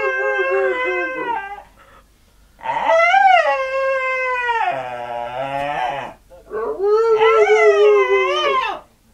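A dog howling and whining in long, wavering howls: one trails off about a second and a half in, a second runs from just under three seconds to about six seconds and sinks to a much lower, steadier tone near its end, and a third runs from about seven seconds to near the end.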